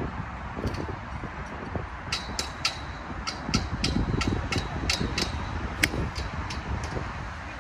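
Golf 7-iron striking a ball off the tee: one sharp click near the end. It comes among a run of short, high ticks, several a second, over a steady low rumble.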